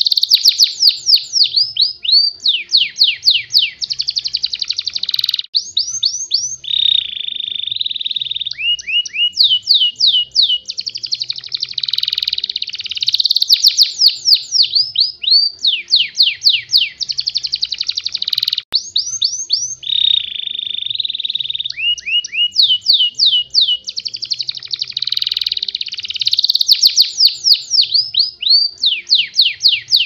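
Domestic canary singing a continuous fast, tight song. Quick trills of downward-sweeping notes alternate with dense buzzy rolls, each phrase lasting a second or two.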